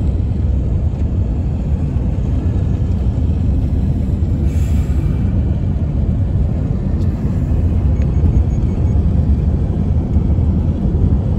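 Steady low rumble of road and wind noise inside a moving car.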